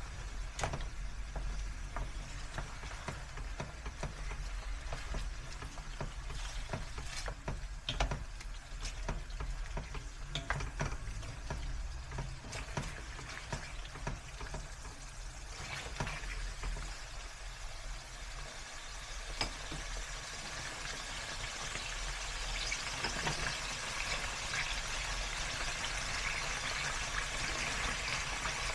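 Kitchen cooking sounds: scattered clicks and knocks of utensils, then food sizzling as it fries in a pan, growing louder in the second half.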